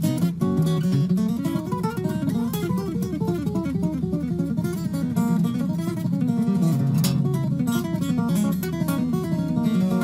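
Background music played on a rapidly plucked, strummed acoustic guitar.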